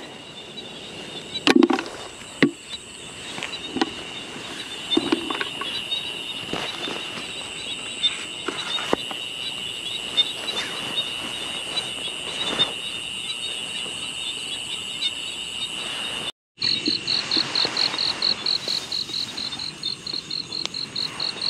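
Night insects, crickets, trilling steadily in a continuous high chorus. A few short knocks from handling sound in the first few seconds. After a brief cut near the end, a faster pulsed chirping at about five pulses a second comes in.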